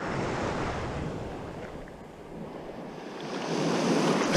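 Small surf waves breaking and washing up the sand at the water's edge; the wash grows louder near the end.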